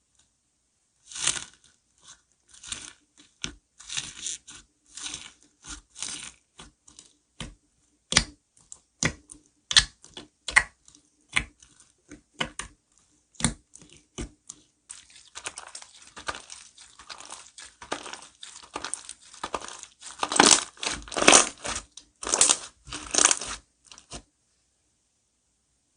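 Hands squishing and stretching slime: a string of irregular sticky clicks and pops that thickens into dense crackling in the last third, loudest near the end, then stops.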